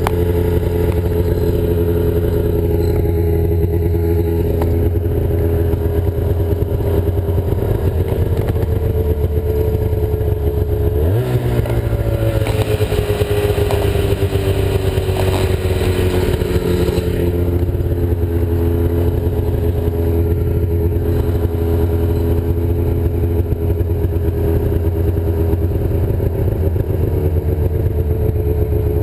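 Ski-Doo snowmobile engine running steadily, its pitch jumping up about eleven seconds in and then slowly falling, with added rushing noise for a few seconds after the jump.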